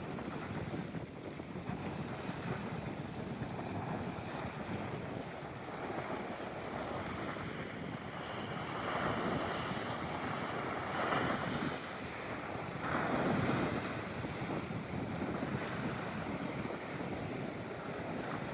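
Sea waves and wind buffeting the microphone, a steady rushing noise that swells three times, about nine, eleven and thirteen seconds in.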